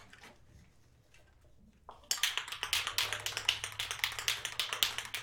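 A handheld torch flame starts about two seconds in and runs with a dense, rapid crackle and a low steady hum beneath it.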